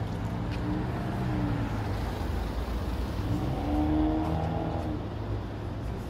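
A car driving past on a city street, its engine and tyres getting louder and then fading, loudest about four seconds in, over steady low traffic rumble.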